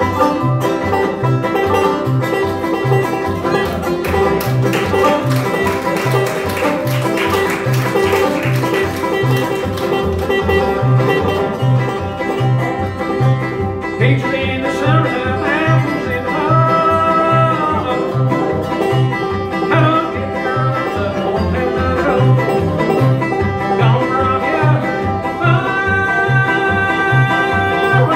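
Bluegrass band playing live: clawhammer-style five-string banjo over an upright bass thumping a steady beat of about two notes a second, with guitar. A higher sliding melody line joins about halfway through.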